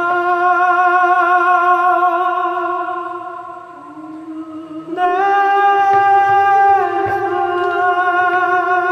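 Dramatic background music of long, sustained vocal notes with vibrato. The notes swell, fade briefly, then step up to a higher held note about five seconds in before settling back.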